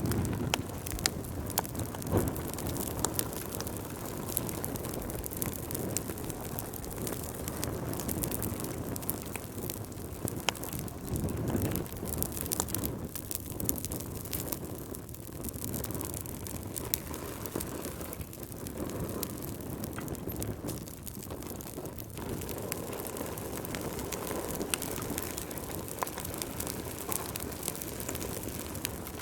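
Wood fire burning in a fireplace: a steady low rush of flames with frequent irregular crackles and pops.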